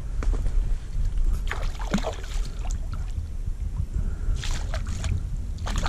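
Hooked bass splashing and thrashing at the water's surface beside the kayak as it is played in, in short bursts of splashing, over a steady low rumble.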